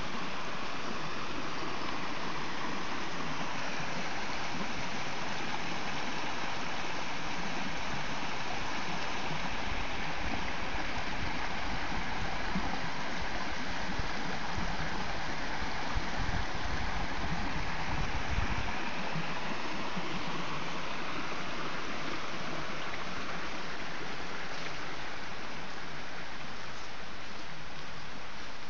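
Small woodland stream running steadily, a continuous even hiss of flowing water. A low rumble joins it about a third of the way in and cuts off suddenly about two-thirds through.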